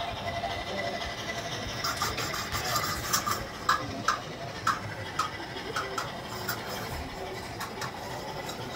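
On30 model train running on its layout: a faint small-motor whirr under a run of light, sharp clicks, about two a second, starting about two seconds in.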